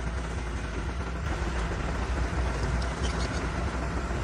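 Diesel engine of a heavy earthmoving machine running steadily under load, with a deep constant drone and a few faint metallic ticks from about three seconds in.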